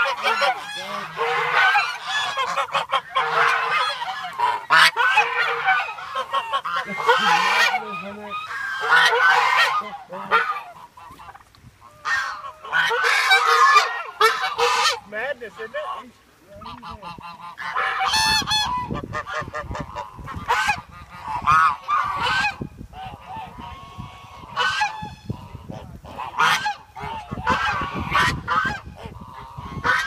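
A flock of domestic geese honking loudly, many calls overlapping in a continuous chorus, with brief lulls about eleven and sixteen seconds in. In the second half a low rumble runs under the calls.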